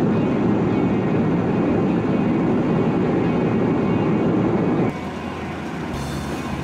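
Steady road and engine noise of a car driving at highway speed, heard from inside the car. About five seconds in it drops to a quieter steady hum.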